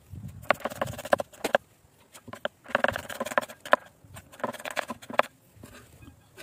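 Chef's knife chopping an onion on a bamboo cutting board: quick runs of sharp taps of the blade striking the wood, in three bursts with short pauses between.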